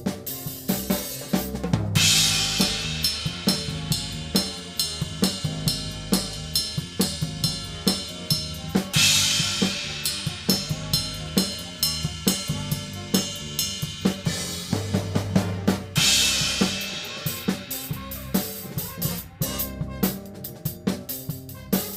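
Drum kit playing a big band chart: steady snare and bass drum strokes under ringing cymbals, with loud cymbal crashes opening out about two, nine and sixteen seconds in. Pitched band instruments play underneath.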